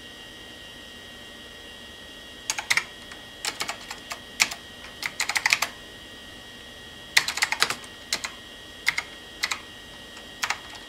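Typing on a desktop PC keyboard: short, quick bursts of keystrokes, then a few single key presses near the end.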